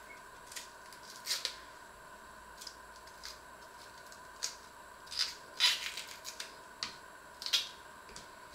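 Small kitchen knife slicing a raw onion held in the hand: a string of irregular crisp cuts, with slices and the knife tip knocking onto a wooden cutting board, busiest in the middle.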